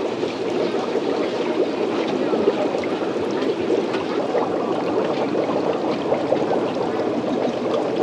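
Steady bubbling and trickling of aerated water in a live-shrimp fishing tank.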